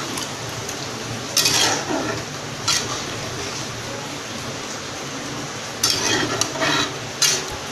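Spatula stirring a thin chickpea curry in a kadhai, scraping against the pan in several strokes, with louder passes about a second and a half in and again around six to seven seconds. Under it runs a steady sizzle from the gravy heating on a high flame.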